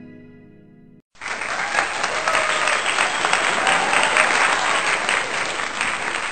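Plucked harp-like intro music dies away over the first second. After a brief gap, a loud burst of crowd applause starts and carries on to the end.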